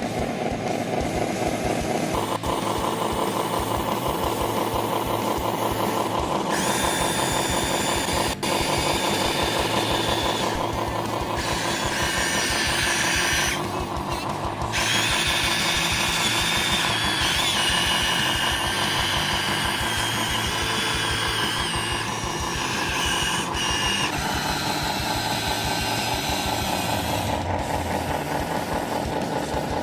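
Toy RC construction models at work: small electric gear motors whine in stretches of several seconds, starting and stopping, over a steady rhythmic engine-like hum.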